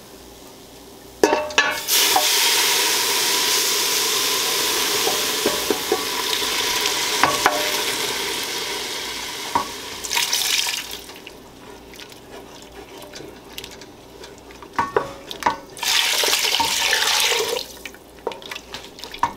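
Chicken broth pouring into a stainless steel stock pot of celery and leeks sautéed in butter, a steady rush of liquid from about a second in until about ten seconds. Then a wooden spoon knocks and stirs in the pot, with a second shorter rush of liquid near the end.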